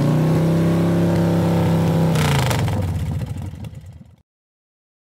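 Engine sound effect: a steady engine note held at one pitch, with a brief rush of noise about two seconds in as the pitch drops slightly, then fading out to silence about four seconds in.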